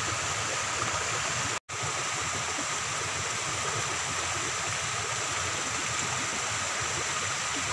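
Steady rush of flowing floodwater, with a momentary dropout about a second and a half in.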